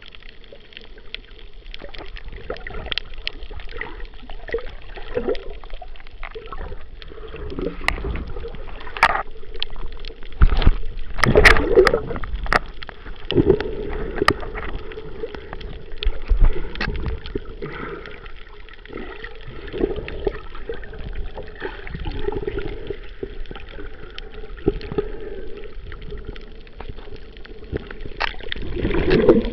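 Water sloshing and gurgling around a camera held underwater while snorkeling, muffled, with irregular clicks and knocks that are loudest and thickest about eleven seconds in.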